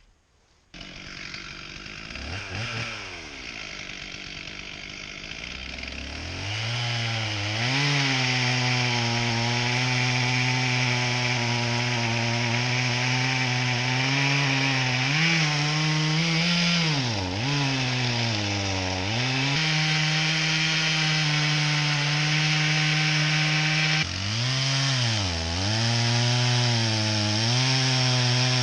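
Stihl two-stroke chainsaw running at a lower speed with a brief rev, then held at full throttle from about six seconds in, cutting through a hickory log. Its pitch dips several times as the chain loads up in the wood.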